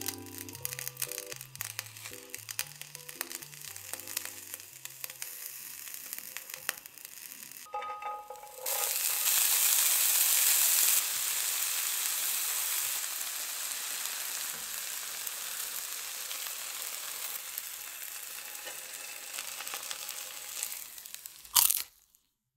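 Food frying in a hot nonstick frying pan: light crackling at first, then from about nine seconds in a loud, steady sizzle as shredded cheese melts in the pan, slowly easing off. A sharp click near the end, then the sound cuts off.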